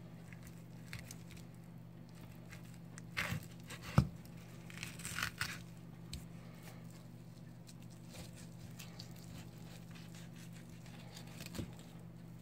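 Knife cutting and pulling meat off a bluefin tuna collar: soft slicing, scraping and tearing of flesh from the bone, with one sharp knock about four seconds in, over a steady low hum.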